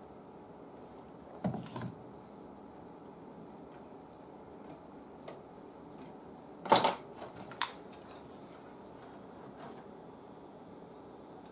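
Small clicks and knocks of tools and parts being handled at a workbench: a brief clatter about one and a half seconds in, then a louder cluster of sharp clicks a little past the middle, over a steady low hiss.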